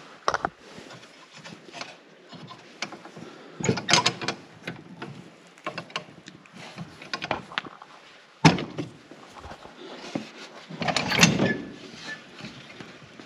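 Knocks and clatter of a Spra-Coupe sprayer's engine hood and covers being unlatched and swung open, with a sharp knock about two-thirds of the way through and a longer rattle near the end.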